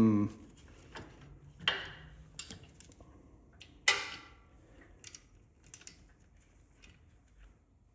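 Metal hand tools clinking: a socket and extension tapping against the motorcycle's engine as they are worked toward an awkwardly placed oil filter, in a handful of separate clinks with the loudest, ringing one about four seconds in.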